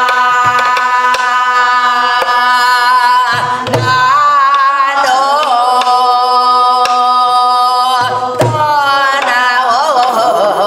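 A woman sings gueum, Korean wordless vocables, in long held notes that break into wavering glides, while beating a buk barrel drum in gutgeori rhythm. A few deep drum strokes and sharp stick clicks mark the beat under the voice.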